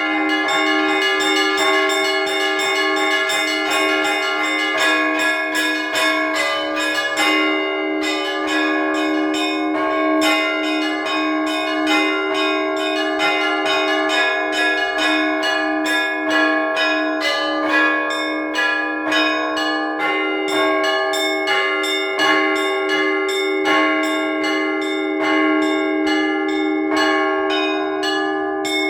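Russian Orthodox church bells rung by hand in a trezvon. Small bells are struck in a rapid, uneven running pattern over the steady hum of a larger bell, making a dense, continuous peal.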